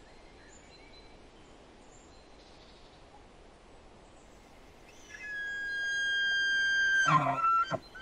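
Bull elk bugling: faint background at first, then about five seconds in a long, high whistle held for about two seconds that breaks into a harsh, low grunt and short chuckling calls near the end.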